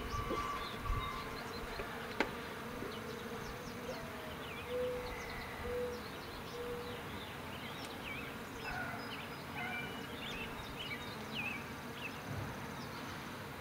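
Honeybees buzzing around an open Langstroth hive, a steady low buzz of flying bees.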